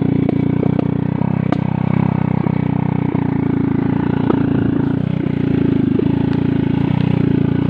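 Motorcycle engine running steadily under way, with frequent short knocks and rattles as the bike jolts over a rough dirt trail.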